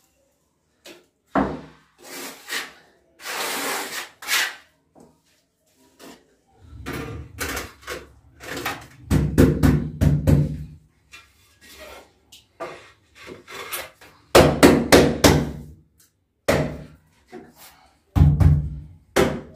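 Steel trowel scooping tile adhesive from a bucket and spreading it onto a wall: a run of irregular scrapes and rubs, the heaviest strokes about halfway through and again near the end.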